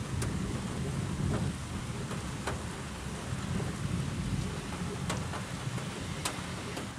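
Steady rain hissing with a low rolling rumble of distant thunder underneath, punctuated by a few sharp ticks.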